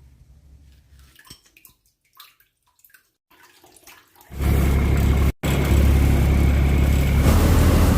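A few faint clicks, then about four seconds in a loud, steady rush of water starts suddenly over a low engine hum, cutting out for an instant once.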